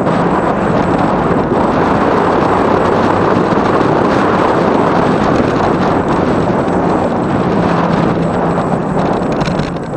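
Steady wind rush buffeting the microphone of a camera riding on an electric bike at road speed, easing slightly near the end.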